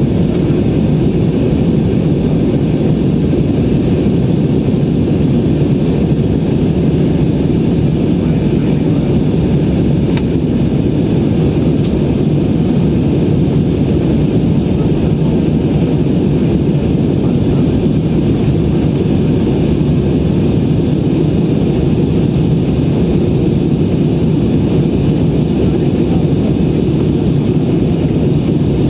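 Steady drone of an airliner's engines and rushing air, heard from inside the passenger cabin.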